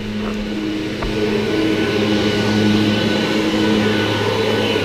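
Backpack leaf blower running steadily at high throttle, its engine drone joined by a thin, steady high whine, slowly growing louder.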